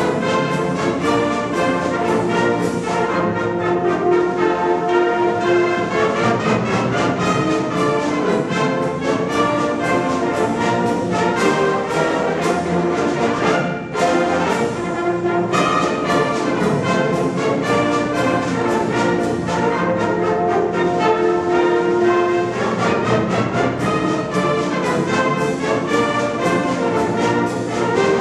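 Band music led by brass instruments, playing continuously with a brief drop about halfway through.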